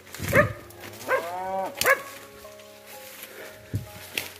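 A dog barking three times in quick succession, the middle bark longer and drawn out.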